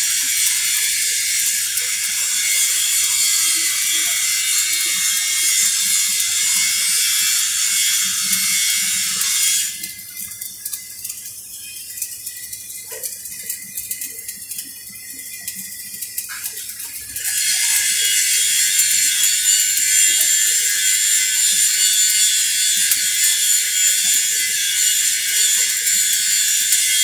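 Electric arc welding: the arc gives off a steady, loud crackling sizzle. It stops for about seven seconds in the middle, leaving only faint hiss and a few ticks, then strikes again and runs on.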